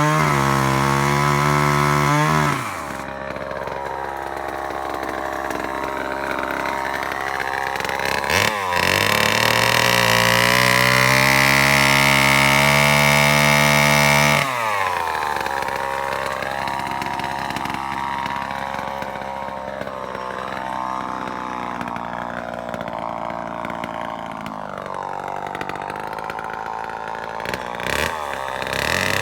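Sears Sportster two-stroke chainsaw running. It is held at high revs for the first two and a half seconds, drops to a quieter, wavering speed, and is revved high and steady again from about 9 to 14 seconds in. It then runs quieter and unevenly until it picks up again near the end.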